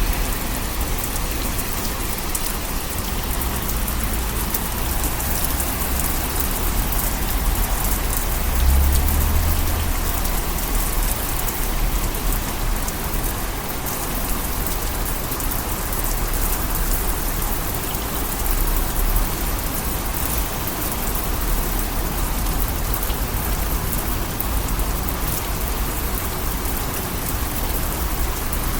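Steady, heavy rain falling on a surface, a dense continuous patter of drops. A brief low rumble swells about nine seconds in.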